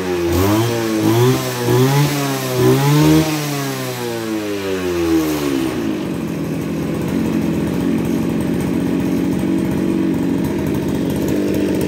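AGRIP A270H brush cutter's 27 cc two-stroke engine (Kawasaki TJ27 type) revved in several quick blips, picking up without stumbling, a sign of a correct fuel mixture. About four seconds in the throttle is let go, and the engine winds down to a steady idle.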